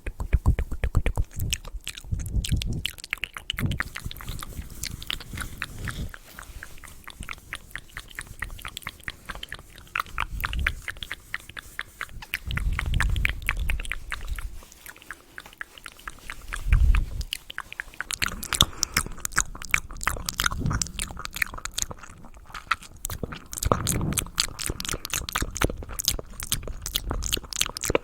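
Close-miked ASMR mouth sounds: rapid, wet clicking and smacking that goes on throughout, with a few soft low thuds.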